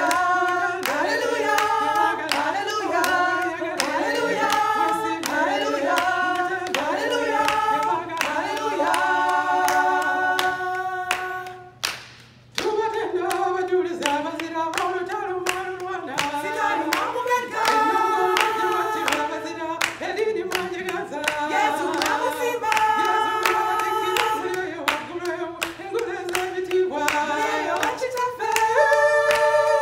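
A small group of women singing together, led by one voice at the microphone, with hands clapping along. The singing breaks off briefly about twelve seconds in and then resumes.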